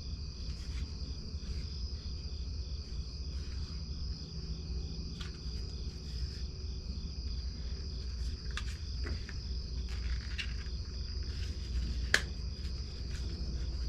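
Crickets chirping steadily in the background over a low rumble, with scattered small clicks and taps of plastic being handled; one sharper click about twelve seconds in.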